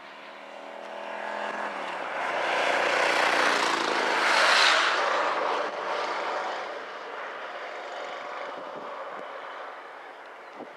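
An aircraft passing over, its roar swelling to a peak about four seconds in and then fading. Under it runs the steady rumble of a long train of coal hopper wagons rolling past.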